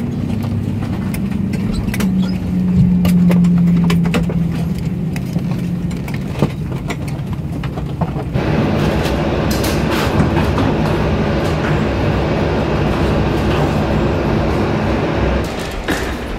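Cabin noise of an Airbus A320 taxiing after landing: a steady engine hum with a low drone and scattered small knocks. About eight seconds in, the noise jumps abruptly to a louder, brighter rush with several steady tones.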